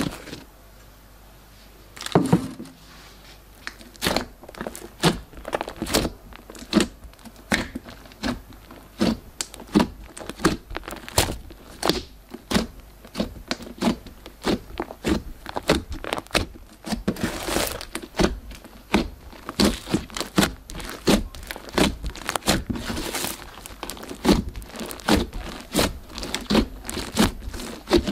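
Glossy slime being worked, giving irregular sharp wet clicks and pops several times a second. It starts about two seconds in, after a quiet opening.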